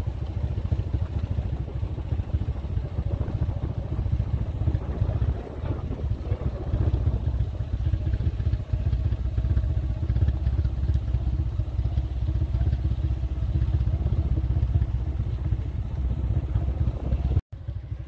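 A motor vehicle's engine running steadily under road and wind rumble while travelling along a rough dirt road. The sound cuts out for an instant near the end.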